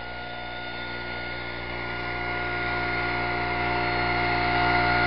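Craftsman 25cc four-stroke leaf blower engine and fan running, growing steadily louder as it is opened up toward full throttle. It runs smoothly with no knock on a low-octane synthetic gasoline blend; the engine is new and still breaking in.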